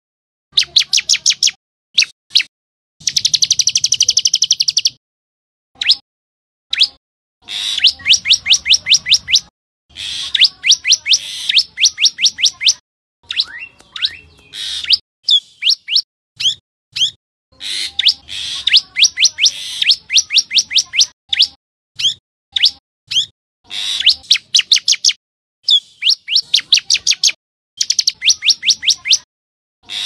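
Common tailorbird calling: repeated runs of sharp, quickly falling chirps, about five or six a second, in bursts of one to two seconds with short pauses between.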